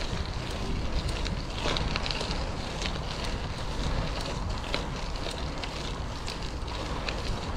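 Bicycle in motion: wind rumbling on the microphone over steady tyre noise, with many scattered crackling ticks from the tyres rolling over a rough surface.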